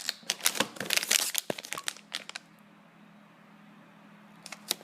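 Packaging crinkling and rustling as it is handled, dense for about the first two seconds, then stopping; a few sharp clicks near the end.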